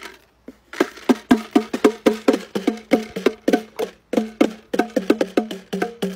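Chickens pecking grain off the heads of a pair of bongo drums: rapid, uneven taps, about five a second, each giving a short ringing drum tone. The tapping starts about a second in.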